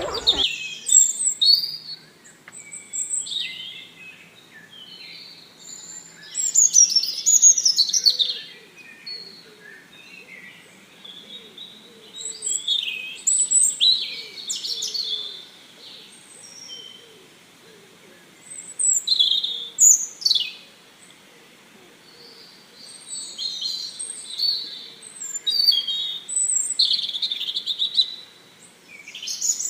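Small birds chirping and singing, with many short whistled notes, trills and quick downward-sweeping calls coming in clusters with brief gaps between them.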